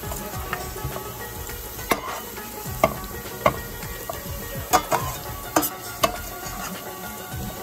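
Sliced onions frying in oil in a steel pan, sizzling steadily while being made into crisp fried onions (beresta). A metal spoon stirs them and scrapes and knocks against the pan several times.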